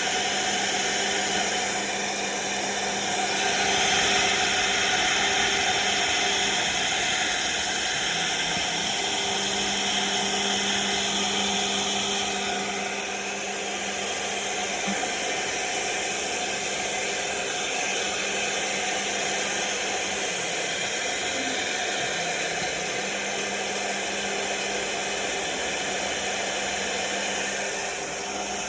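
CNC router spindle running with a solid-carbide bit cutting 4 mm aluminium composite (ACM) panel: a steady machine hum under a hissing cutting noise that is louder for a while early on, then eases a little.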